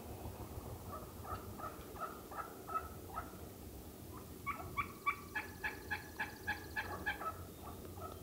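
Wild turkey hens yelping: a soft run of short yelps, then from about four and a half seconds in a louder series of about a dozen evenly spaced yelps.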